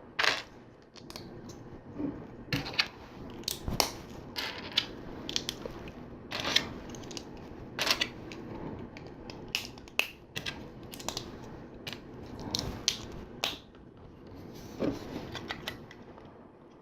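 LEGO plastic pieces being handled and pressed together: irregular sharp clicks and snaps over a light rustle.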